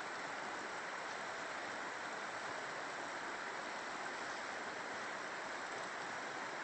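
A mountain river rushing steadily, an even noise that does not pause or change.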